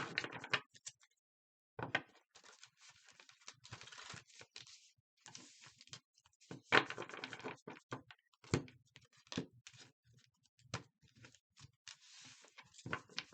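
A deck of tarot cards being shuffled and handled: stretches of papery rustling broken by irregular sharp taps and clicks as the cards are cut and knocked together.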